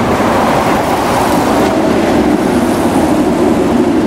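Steady, loud noise of moving street vehicles: an even rumble with no breaks.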